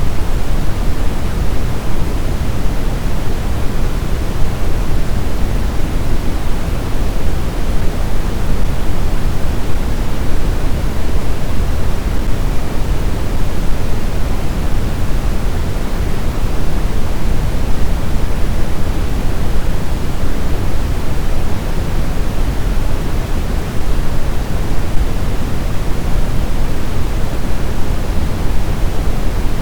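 Steady synthetic noise, heavy in the low end and softer toward the top (pink-style white noise played as a sleep aid), unchanging throughout.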